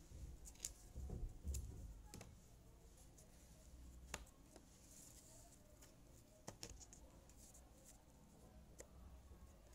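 Jigsaw puzzle pieces being handled and pressed into place on a table: faint, scattered light taps and clicks, with a few soft low bumps about a second in.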